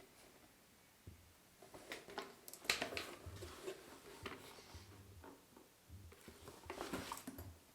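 Faint scattered clicks and soft knocks in a small room, with no accordion playing; the densest clicks come about a third of the way in and again near the end.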